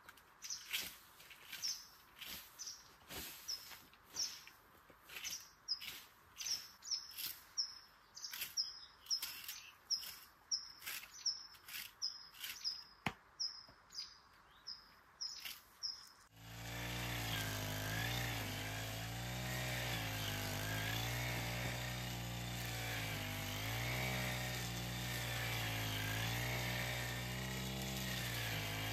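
A small bird chirping over and over, a short high note about twice a second, with scattered clicks. About two-thirds of the way in, a steady low drone with a slowly wavering pitch starts suddenly and covers it.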